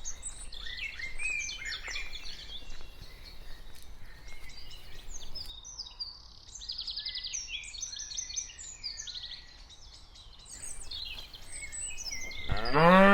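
Small birds chirping and trilling with short high notes, including a quick even trill about halfway through. Near the end a cow begins a loud, long moo.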